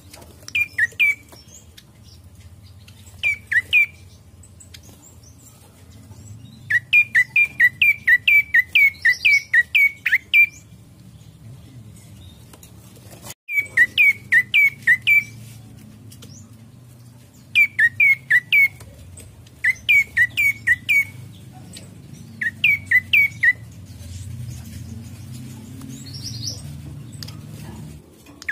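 Prenjak coki calling in phrases of loud, sharp chirps, each note quickly falling in pitch. The phrases run from two notes to a run of about a dozen at roughly three to four a second, with pauses between them.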